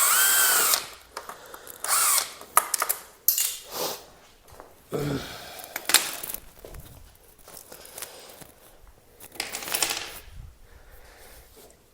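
Power drill run in about five short bursts, its motor whine rising and falling with each trigger pull, with light clicks and clinks between. It is backing out the fasteners of a Kawasaki ZX6R's fairings and windshield.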